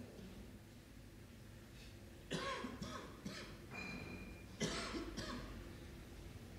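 A person coughs twice, about two seconds apart.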